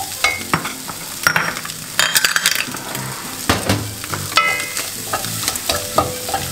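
Stir-frying a shrimp and tofu filling in a nonstick wok: a wooden spatula scraping and clacking irregularly against the pan over the sizzle of the frying food.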